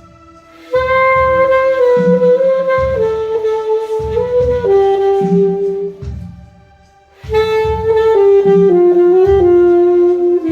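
Alto saxophone playing two slow phrases of long held notes that step downward, with a short pause between them, over a recorded backing track with a low, evenly recurring pulse.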